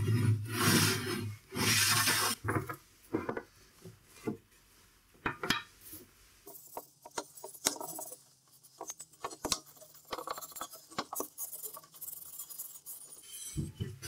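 Three harsh scraping strokes on plywood at the start, then scattered light metallic clinks and taps from a tin of wood stain and its lid, with quiet rubbing as stain is wiped onto the wood.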